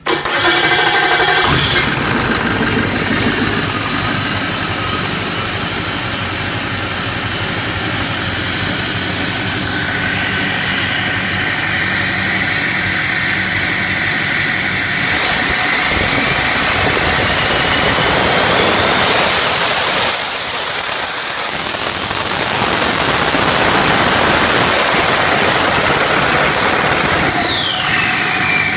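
2007 International VT365 6.0-litre V8 turbo diesel on a run stand, cranked by its starter and catching within about a second and a half, then running steadily and loudly. A high whine rises over several seconds, holds, then drops away sharply near the end.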